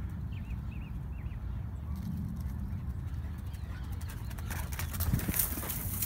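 Footfalls scuffing on dry dirt as a dog trots close by, thickest and loudest a little before the end, over a steady low rumble. A few short bird chirps come in the first second or so.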